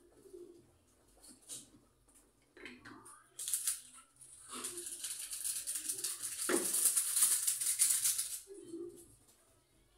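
Dried pancit noodles crackling and rattling as they are handled in their box. A dense, dry crackle starts a few seconds in and lasts about five seconds.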